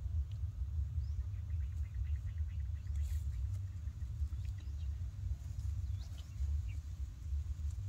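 Outdoor background sound: a steady low rumble, with a few faint bird chirps and a brief fast ticking trill about a second in.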